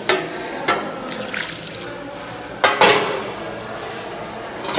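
Tap water running onto a stainless steel compartment tray as it is rinsed, with several sharp metallic knocks of the tray, the loudest about two and a half seconds in.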